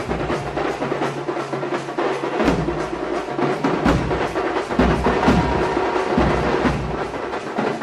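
Frenzied drumming in a festival procession: several drums beaten fast and hard together, a dense, unbroken stream of sharp strokes with deeper booming beats under it.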